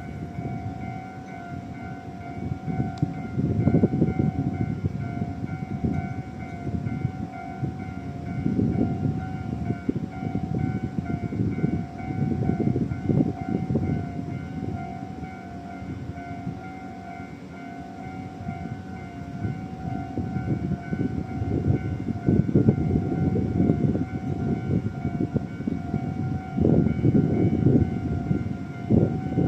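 Japanese railway level-crossing warning alarms ringing, a steady repeating electronic 'kan-kan' tone. The crossing has separate alarms for pedestrians and for road traffic, and the two ring at slightly different rates, so they drift in and out of step. Irregular low rumbling swells and fades underneath.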